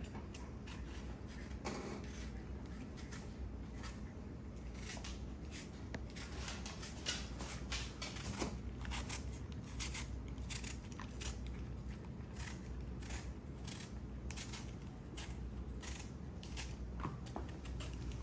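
Hand-held vegetable peeler cutting the skin from an apple: a quiet, irregular run of short crisp cuts, coming faster about a third of the way in.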